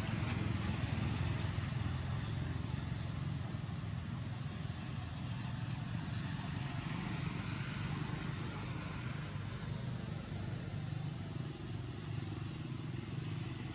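Steady low rumble of road traffic, even throughout with no single vehicle passing out of it.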